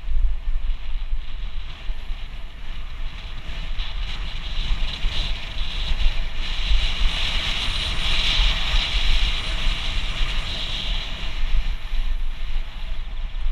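Mountain bike rolling along a gravel trail: wind buffeting the microphone with a heavy low rumble, over a hiss of tyres on gravel and rattle from the bike, with the hiss rising in the middle of the stretch and then easing.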